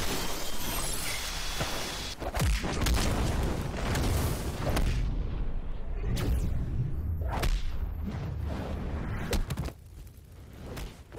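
Animated fight sound effects: a dense run of whooshes, booms and sharp impacts over a deep rumble, easing off near the end.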